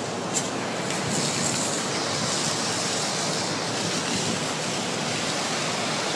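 Steady hiss of fire extinguishers spraying paint, growing stronger and more hissing about a second in.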